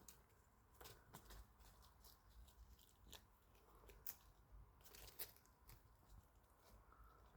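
Near silence with faint, scattered clicks and crackles at irregular moments, the sharpest about four and five seconds in.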